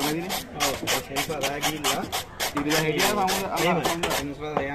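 Knife blade scraping the scales off a large wavy-lined grouper in quick, repeated rasping strokes, several a second.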